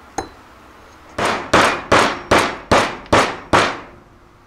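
A nylon hammer striking a 46 mm socket set on a grease seal, driving the seal flush into a wheel hub: seven sharp blows, about two and a half a second, each ringing briefly. A single light click comes just before the blows.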